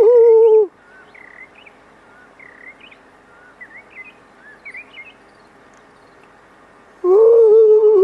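A person humming a long, steady note in answer to the coucals: one note ends just under a second in and another starts near the end. In between, faint short chirps of small birds.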